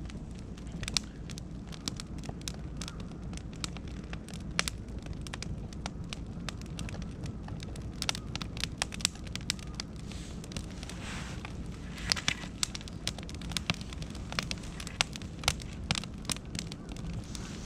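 Wood fire of beech and oak logs crackling, with irregular sharp pops throughout over a steady low rumble; the pops come thicker about twelve seconds in.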